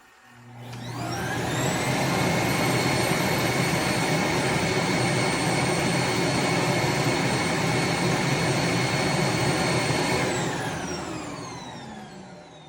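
Suction motor of a Eureka robot vacuum's bagless self-emptying station running an emptying cycle. The motor spins up with a rising whine over the first second or two, runs loud and steady for about eight seconds, then winds down with a falling whine near the end.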